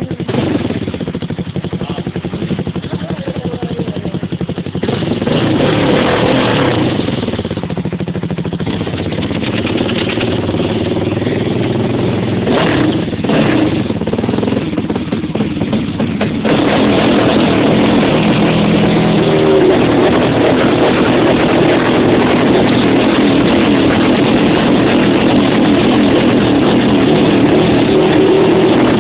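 Quad bike engine running and revving while the machine is stuck in a river and being hauled out on a rope. It surges in bursts and grows louder and steadier from about halfway through.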